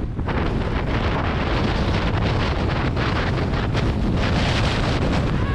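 Wind buffeting the microphone with the steady scraping hiss of a snowboard sliding fast over packed snow, loud and rough throughout; the level jumps up sharply right at the start.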